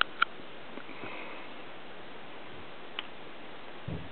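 Quiet room tone with a steady recording hiss. Two sharp clicks at the very start, a fainter tick about three seconds in and a soft low knock near the end, typical of a handheld camcorder being handled.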